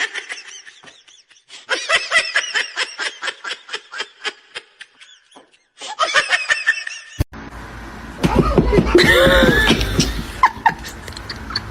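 Laughter: a long run of quick, high-pitched laughs, followed by a sudden cut about seven seconds in to a different clip with a low hum and a few vocal sounds.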